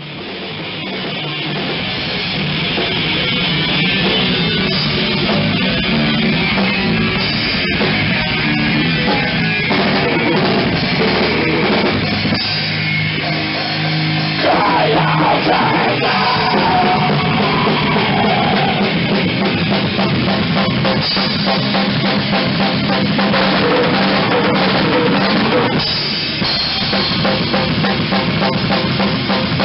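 Death metal band playing: heavily distorted guitars and bass over a drum kit, on a rough, low-fidelity recording. The music fades in over the first few seconds.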